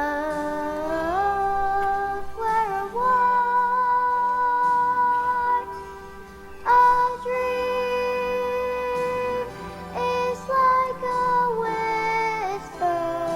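A song with a sung melody of long held notes over instrumental accompaniment.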